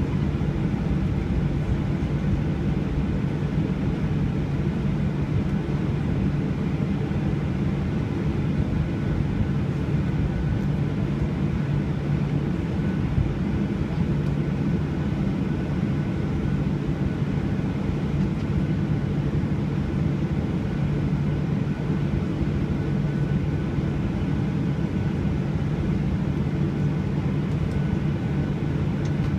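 Jet airliner cabin noise: a steady drone of engines and rushing air heard from inside the cabin, with a low hum and a faint high tone held throughout.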